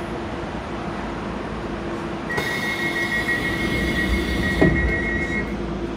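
Docklands Light Railway train standing at a station, its door-closing warning tone sounding steadily for about three seconds from a little after two seconds in. Near the end of the tone there is a single thud as the sliding doors shut, over the train's low hum.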